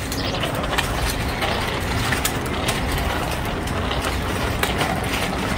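Steady city street traffic rumble, with scattered light clicks and rattles from a child's bike with training wheels rolling over the concrete sidewalk.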